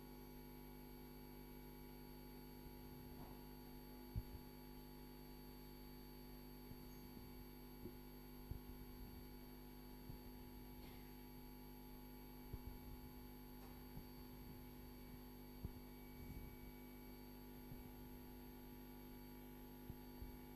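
Near silence: a steady electrical hum with several steady tones, and a few faint, short low knocks now and then.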